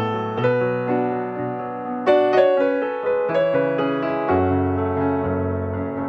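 Background piano music: single notes and chords struck about once a second and left to ring and fade.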